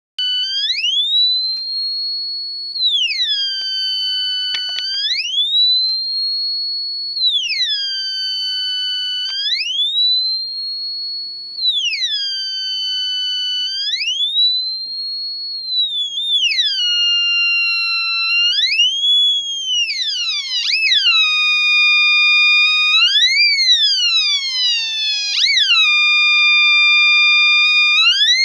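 Homemade electronic siren with an output amplifier stage sounding a shrill tone that glides up to a high pitch, holds, then slides back down to a low pitch, about once every four to five seconds. After about two-thirds of the way through the pattern changes to quicker swoops that drop sharply and climb back up.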